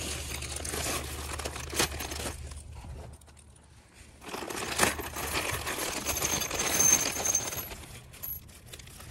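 Plastic packaging crinkling as a hardware bag is cut and pulled open, with the metal bolts, nuts and springs inside clinking together. There is a brief lull about three seconds in.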